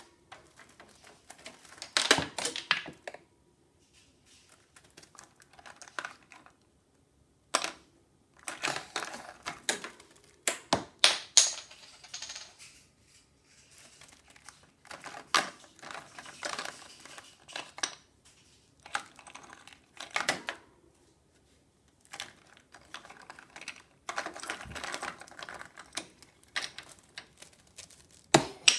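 A budgerigar pecking at and pushing plastic bottle caps across the top of its wire cage: irregular bursts of quick clicking and clattering, with a few sharper clacks, separated by short pauses.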